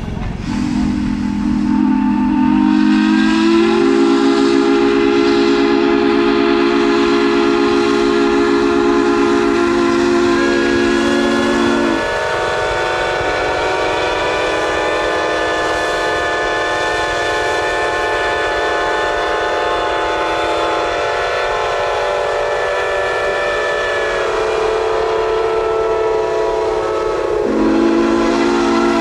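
Several steam whistles blowing at once for the noon signal, overlapping at different pitches, some deep and some higher. The deepest one, sounding several tones together, cuts off about twelve seconds in and comes back near the end while the higher whistles keep blowing.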